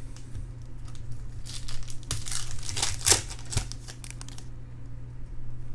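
Trading-card pack wrapper being torn open and crinkled, the rustling loudest about halfway through, over a steady low hum.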